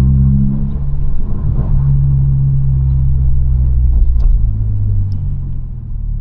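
2022 Honda Civic Si's turbocharged 1.5-litre four-cylinder engine pulling steadily under load, heard from inside the cabin as a low drone. The engine's pitch shifts about a second in, and it eases off in loudness near the end.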